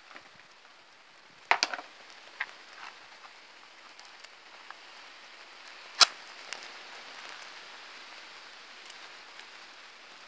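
Small firelighter flames burning with a soft, even crackling hiss, broken by sharp clicks: a quick cluster about a second and a half in, a lone one after that, and the loudest single snap about six seconds in.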